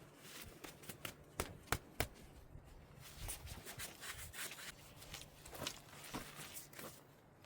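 Faint rubbing and scraping on barked logs, with scattered sharp knocks and clicks, the clearest about a second and a half and two seconds in.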